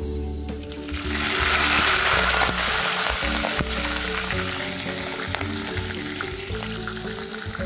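Chillies and other vegetables dropped into hot oil in a wok and frying: the sizzle swells about a second in, then carries on as a steady sizzle. Background music plays throughout.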